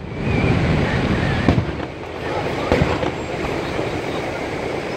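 Aerial fireworks shells bursting overhead: a few sharp bangs, the clearest about a second and a half in and again near three seconds, over a continuous low rumble.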